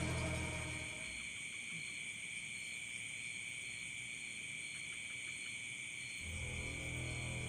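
Steady, high-pitched chorus of night insects such as crickets, one of them pulsing. Low, eerie background music fades out about a second in and comes back near the end.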